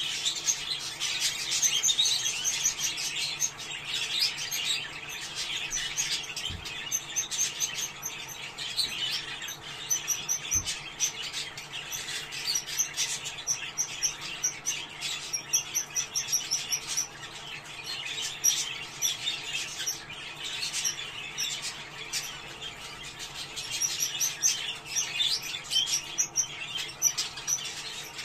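A group of budgerigars chattering and warbling without pause, a dense mix of overlapping chirps and rapid trills.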